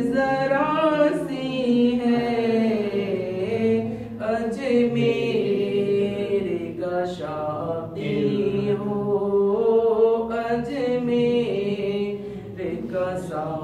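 A man singing a naat, an Urdu devotional song, unaccompanied, with long held notes that glide and waver between phrases.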